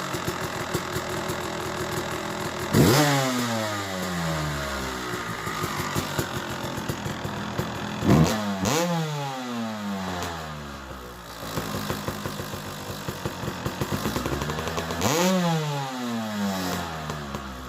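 2008 Yamaha YZ250's single-cylinder two-stroke engine, bored out to 285 and running on a newly fitted APT Smartcarb, idling in neutral and blipped three times. On each blip the revs shoot up and then fall back to idle. It has a slight bog off the bottom, which the owner takes as a sign it is running a little lean.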